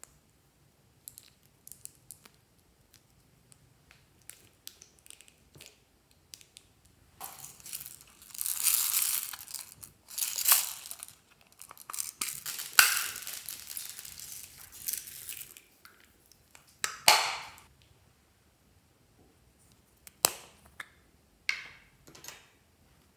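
Hands handling lipstick tubes and small plastic cosmetic containers: light clicks of caps and lids. In the middle comes a longer stretch of noisy rustling handling, and near the end there are a few sharp single clicks.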